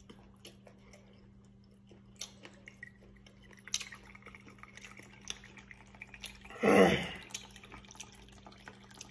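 Dark liquid poured from a glass bottle in a thin, slow stream into a small metal cup, with faint scattered drips. One short louder sound comes about seven seconds in.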